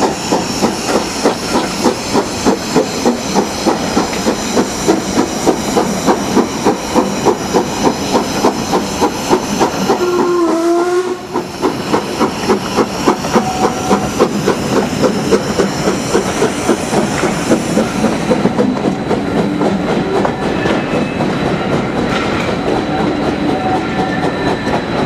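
Steam locomotive working hard at the head of a train, heard from the carriages behind: a steady rhythm of exhaust beats with hiss, and a short whistle about ten seconds in. After about eighteen seconds the beats soften and the sound turns to a more even rolling of wheels and steam.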